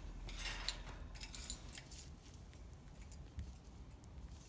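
Scattered light clicks and clinks around a metal parrot cage with hanging plastic toys, as a green-cheeked conure moves about, with a short rustle about half a second in.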